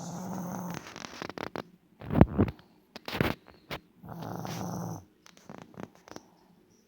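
A sleeping dog snoring: drawn-out rasping breaths about a second long at the start and again around four seconds in, with two louder, shorter noises around two and three seconds in and a few small clicks between the breaths.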